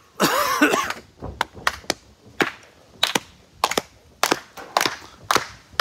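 A short loud burst just after the start, then a run of sharp claps, mostly in quick pairs about every half second.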